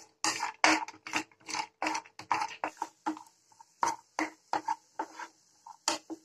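Wooden spatula scraping and knocking against a non-stick frying pan in quick strokes, about three a second, while stirring cashew pieces roasting in ghee.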